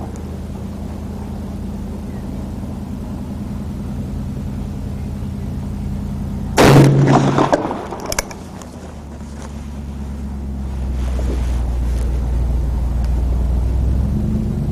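A single shot from a .500 JRH big-bore revolver firing a lead-free test load, about six and a half seconds in, with a fainter sharp report about a second and a half later. A steady low hum runs underneath.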